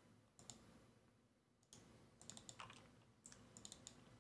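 Faint clicks of a computer keyboard and mouse: a few single key presses, then two quick clusters of clicks in the second half.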